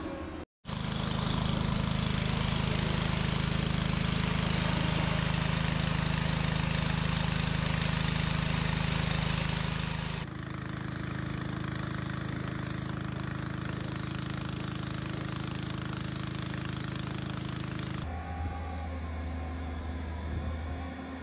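A motor or engine running steadily, in three clips joined by hard cuts, with a short silent gap near the start.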